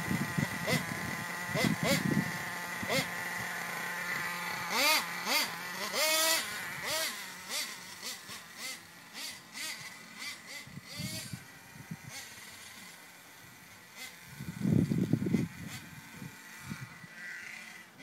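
Nitro engine of an HPI Savage X 4.6 RC monster truck with an LRP exhaust, revving up in pitch about five seconds in as the truck drives off, then fading away.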